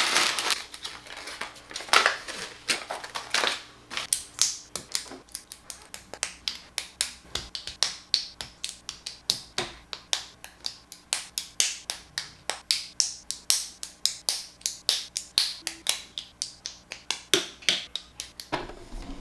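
Lego plastic bricks being clicked and snapped together in quick succession, a steady run of sharp clicks about three a second, with a short burst of crinkling at the start.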